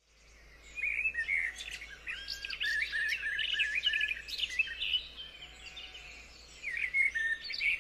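Several birds chirping and singing together, many short rising and falling whistles overlapping. The sound fades in from silence over the first second.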